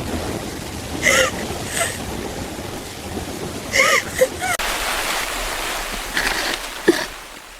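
Steady rain falling, with a low rumble under it that drops away a little over halfway through. A few short chirp-like tones sound over the rain about a second in and again around four seconds.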